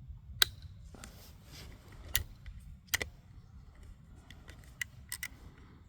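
Metallic clicks from a Zastava M922 .22 LR bolt-action rifle: one sharp click about half a second in, then a run of lighter clicks as the action is worked. The rifle seems to have clicked without firing, the kind of feeding and extraction trouble it has been having.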